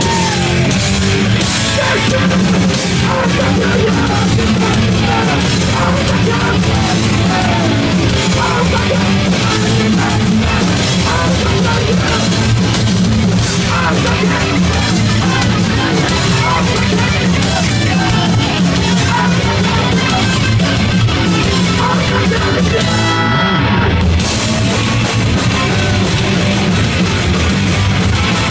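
Live hardcore punk band playing loud and fast: distorted electric guitars, bass and a pounding drum kit, heard from inside the crowd. The cymbals drop out briefly near the end before the band crashes back in.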